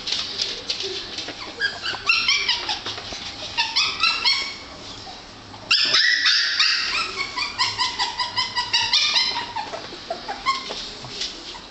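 Six-week-old Scottish terrier puppies whimpering and yipping: runs of short, high-pitched cries that rise and fall in pitch, easing for a moment about five seconds in, then starting again louder.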